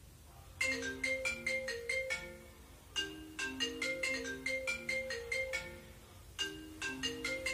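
A marimba-style phone ringtone plays: a short, bright mallet melody that starts about half a second in and repeats in phrases with brief pauses between them.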